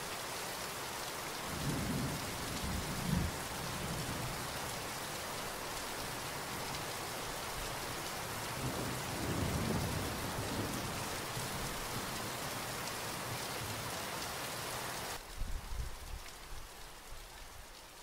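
Recording of steady rain with thunder rumbling twice, about two seconds in and again around nine to ten seconds. The rain hiss cuts off suddenly about fifteen seconds in, leaving a few low rumbles that fade away.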